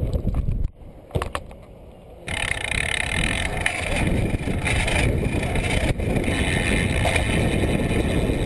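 BMX bike rolling over concrete: tyre rumble and wind rushing over the bike-mounted microphone. The noise drops away under a second in, with a couple of clicks, then comes back loud and hissing about two seconds in.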